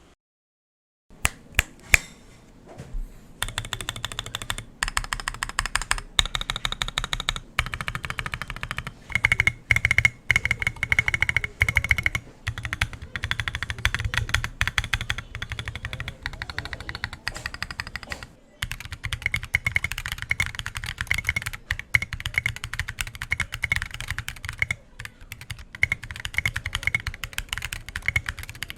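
Fast typing on a mechanical keyboard with a concrete case and Designer Studio White Jade tactile switches. A few separate keystrokes come first, then a dense, continuous run of key clicks, broken by a couple of brief pauses.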